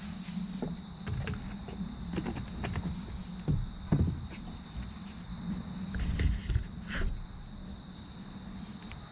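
A few knocks and rustles of boards and tape being handled, loudest about four seconds in and again around six to seven seconds. Under them runs a steady high-pitched whine and a low hum.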